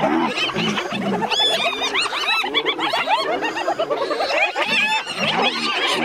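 A clan of spotted hyenas giggling and yelping, many short rising-and-falling calls overlapping without a break: the excited chorus of hyenas contesting a kill with lions.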